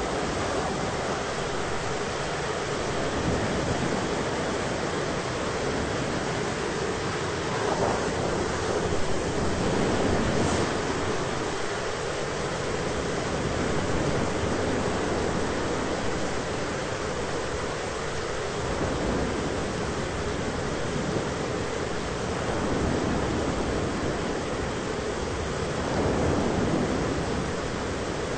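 Thunderstorm ambience: a steady rushing noise of wind and rain, swelling slowly about a third of the way in and again near the end.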